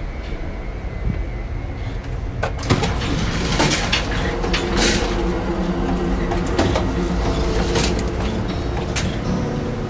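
Rumble of an Amtrak Superliner passenger train in motion, heard from inside the car. About two and a half seconds in it gets louder, with a run of sharp rattles and clatters over the running noise.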